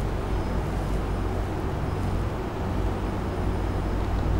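Steady background rumble and hiss with a low, even hum underneath; no speech.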